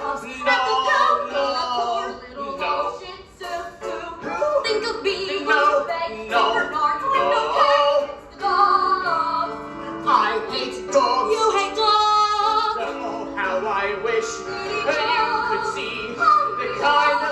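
Woman singing a musical-theatre song with instrumental accompaniment.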